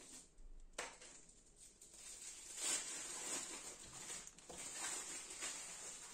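Faint scratching and small clicks of a little screwdriver working the screw terminals of a circuit board as wires are fastened, with one sharper click about a second in.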